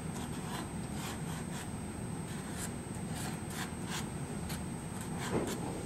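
Soft pastel stick rubbing and scratching across paper in a run of short, uneven strokes.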